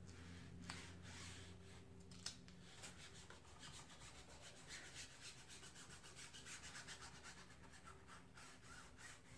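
Faint rubbing of a hand smoothing a stencil down onto a painted wooden board, in quick repeated strokes from about three seconds in, pressing out air bubbles.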